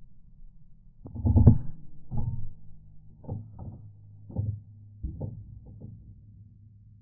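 A muffled shot from a suppressed Huben K1 Lite .25 semi-automatic air rifle about a second in, followed over the next few seconds by a string of dull thumps as the hit pigeon flaps and tumbles.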